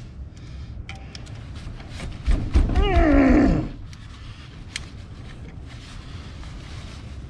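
A man grunts with effort for about a second and a half, his voice wavering and falling in pitch, while he works stiff fence wire loose with pliers. Small clicks of the pliers and wire come before and after it.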